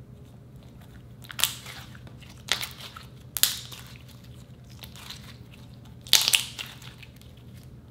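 Slime being squeezed and folded by hand, giving four short bursts of squelching, crackling pops, the loudest about six seconds in.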